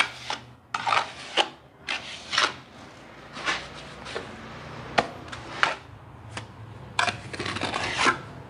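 Mason's steel trowel scraping through wet cement mortar: scooping it from a bucket and off a hand-held board and spreading it onto a bare patch of wall to re-render it. The trowel makes short, irregular scraping strokes, a dozen or so, a few louder ones near the start and near the end.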